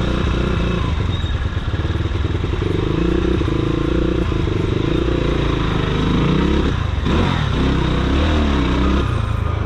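Motorcycle engine running at low speed through stop-and-go traffic, its pitch dipping and rising a few times in the second half as the throttle is opened and closed.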